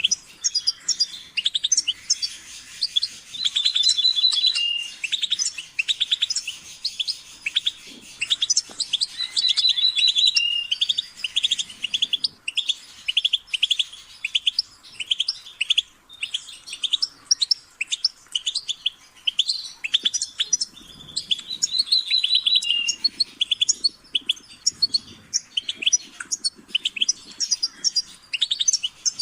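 European goldfinch singing: a fast, unbroken run of twittering chirps. It is broken up a few times by a short trilled phrase that drops to a lower note at its end.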